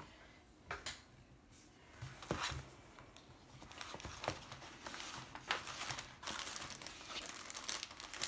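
Plastic sleeve and paper of a rolled diamond-painting canvas crinkling as they are handled, slid off and unrolled. It starts with a few light scattered rustles, then turns into dense crinkling that grows louder over the second half.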